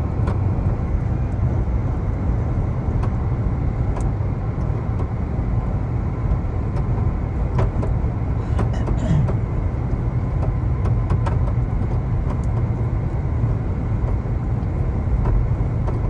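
Steady road and wind rumble inside the cabin of a Subaru Solterra electric SUV at highway speed, with a few faint, irregular taps. The owner takes the tapping for something loose flapping against the underside of the car, probably on the driver's side.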